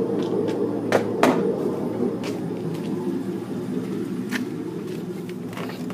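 Chevrolet Silverado engine idling through hollowed-out glass pack mufflers, a steady deep exhaust rumble that fades slightly. Two sharp clicks about a second in.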